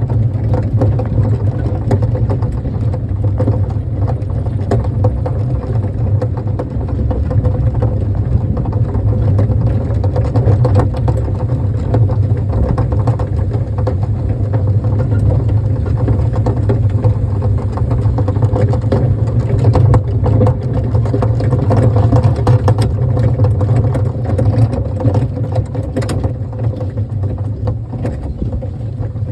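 Kiddie train running with a steady low rumble, broken by frequent short rattles and clicks.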